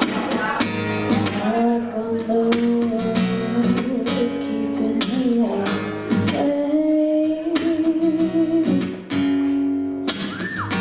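Acoustic guitar strummed in a steady rhythm, with a voice singing long held notes over it.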